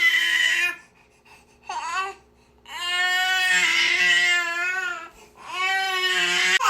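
Baby crying in repeated wails. A wail ends just under a second in, a short rising cry comes about two seconds in, then a long wail of about two seconds follows, and another begins near the end.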